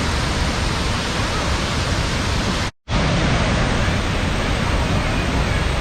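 Waterfall rushing steadily, a loud, even wash of falling water. It cuts out for a split second about halfway through, then resumes.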